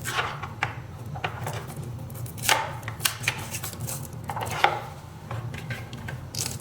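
Irregular clicks, knocks and scrapes of hands and tools working on an electric scooter's controller inside its opened battery compartment, where the controller is held in with glue. The loudest knocks come about two and a half seconds and about four and a half seconds in.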